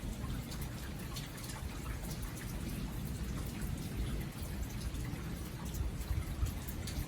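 Steady rain falling, with scattered drops tapping and a low rumble underneath.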